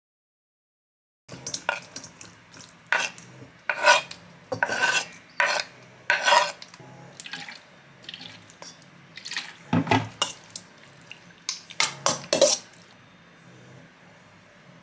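Knife scraping cubed raw salmon off a wooden cutting board into a stainless steel bowl: a string of short scrapes and clatters starting about a second in. A few more knocks and scrapes against the metal bowl follow as soy sauce and sesame oil are spooned in.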